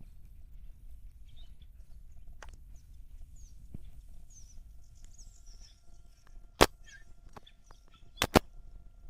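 Faint bird chirps over a low outdoor rumble, broken by three sharp clicks: one a little past the middle and a quick pair near the end.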